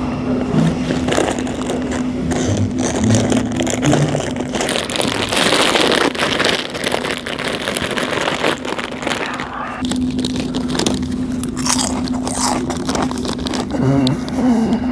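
Loud, open-mouthed crunching and chewing of potato chips: a rapid, irregular run of crisp crunches, over a steady low hum in parts.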